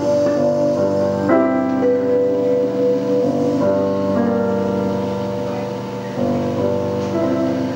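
Keyboard playing slow, sustained chords, held notes changing every second or so, in an instrumental passage of a live song.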